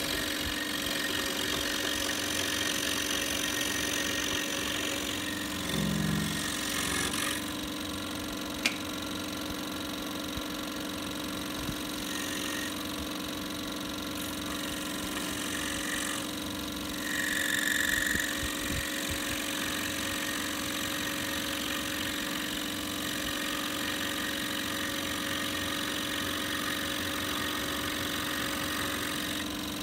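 Scroll saw running steadily, its reciprocating blade cutting through a small block of wood with a constant motor hum and saw hiss. A single sharp click about nine seconds in, and a brief louder stretch of cutting a little past halfway.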